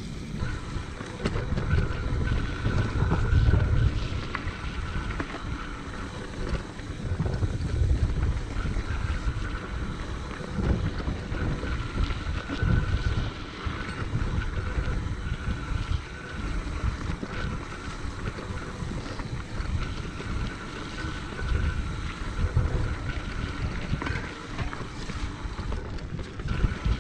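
Wind buffeting the microphone of a camera on a mountain bike riding fast down a dirt singletrack, with the tyres rolling over the dirt and the bike rattling over bumps; the rumble swells and eases as the speed changes.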